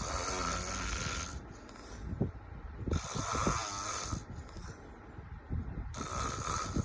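A person snoring: a noisy, rasping snore breath comes about every three seconds, three times, with quieter low rattling breaths in between.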